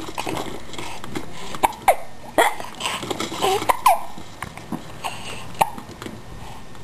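A four-month-old baby's short, breathy laughs and squeaks, coming as a handful of separate little gasps with pauses between them.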